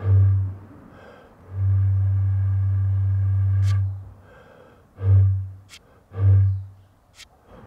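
Hue puruhau, a large blown gourd, sounding a deep drone in breath-length blasts. There is a short blast at the start, a long held note of about two and a half seconds, then two short blasts near the end, with a few sharp clicks between.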